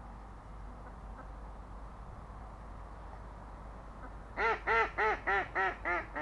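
A duck quacking: a quick run of about seven quacks, roughly three a second, starting about four seconds in and trailing off slightly.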